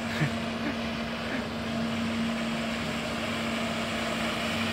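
Nilfisk walk-behind floor scrubber-dryer running steadily while it scrubs a wet concrete floor: a constant motor hum over an even hiss.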